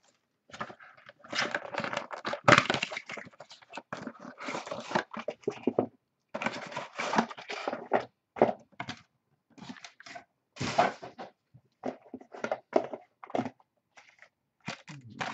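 A 2012 Absolute Memorabilia football trading-card box being unwrapped and opened by hand: irregular crinkling and tearing of plastic wrap and cardboard, with a sharp crack about two and a half seconds in, then the packs handled and set down.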